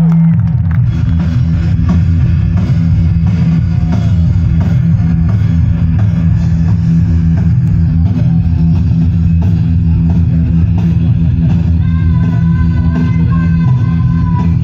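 Live rock music: distorted electric guitar and drum kit playing loudly, a guitar-and-drums band starting its set. A high sustained note joins in near the end.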